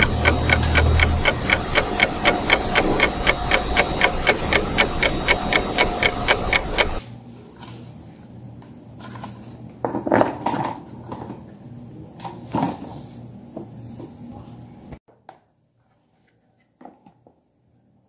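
Small electric fan motor running with a rapid, even mechanical ticking over a steady hum, which stops about seven seconds in. Then come a few plastic clicks and handling noises as a plastic blade is pushed onto the bare fan motor's hub.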